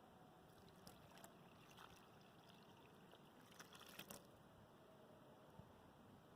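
Faint pouring of water onto hot, freshly melted aluminium to cool it, with scattered small crackles that are densest about three and a half to four seconds in.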